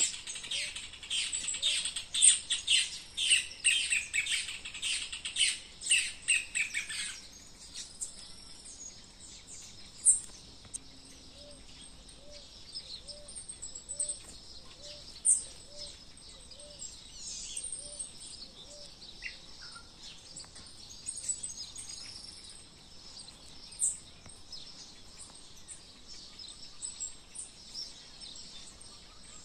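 Morning birdsong from many birds: dense, loud chirping and chattering that cuts off abruptly about seven seconds in, followed by softer, scattered chirps and calls. A soft low note repeats about twice a second for several seconds around the middle.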